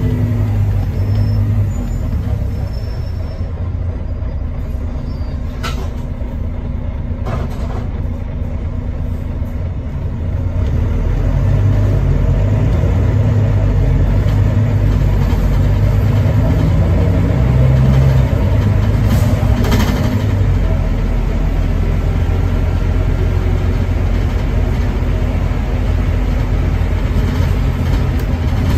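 Volvo B9TL double-decker bus's Volvo D9B 9.3-litre diesel engine running. It is quieter for the first ten seconds or so, then pulls harder and louder from about eleven seconds in. A few brief sharp noises come near six, seven and twenty seconds.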